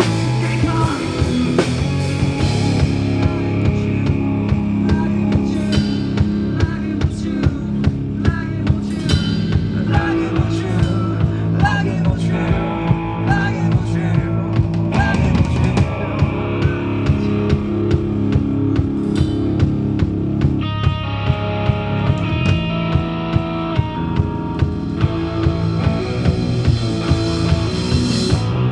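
Live rock band playing: a drum kit keeps a steady beat under bass and electric guitar.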